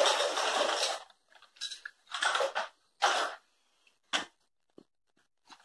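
Plastic toy kitchen pieces being handled and knocked together: a rustling clatter in the first second, then a few short rattles and a couple of sharp clicks.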